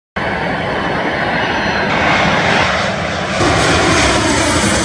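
Jet airliner on approach, its engines a loud, steady rush of noise that shifts abruptly in tone twice.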